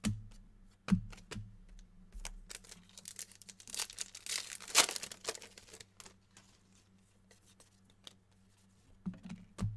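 A trading-card pack wrapper being torn open and crinkled, loudest about four to five seconds in, with a few light taps and knocks of cards being handled before and after.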